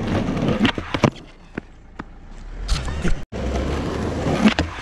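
Skateboard wheels rolling over rough asphalt with a coarse rumble, broken by a few sharp clacks of the board. The rumble fades in the middle, cuts out briefly a little past three seconds, then comes back loud.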